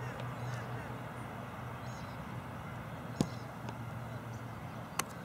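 A steady low hum broken by two short, sharp knocks, one about three seconds in and a second near the end.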